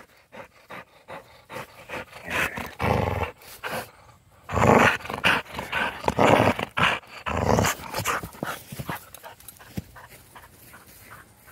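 A dog growling in play in several short bursts while tugging at a ball in a person's hand, refusing to let go of it.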